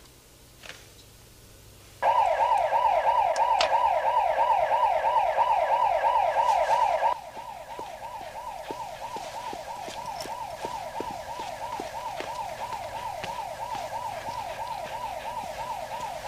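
Electronic intruder alarm going off: a fast repeating rising whoop, about four sweeps a second. It starts about two seconds in and drops to a much quieter level about seven seconds in, still sounding.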